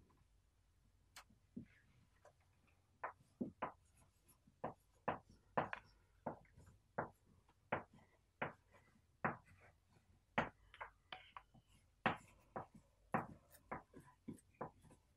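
Chalk on a blackboard while letters are written: a quiet string of short, irregular taps and scrapes, about two a second.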